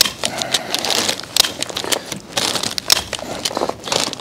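Plastic sheeting crinkling and rustling in irregular bursts as it is pulled and tucked over the top of a block wall.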